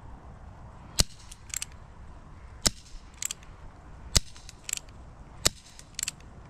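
Remington 1875 Cowboy CO2 air revolver firing four sharp shots about one and a half seconds apart, each followed about half a second later by one or two quieter clicks.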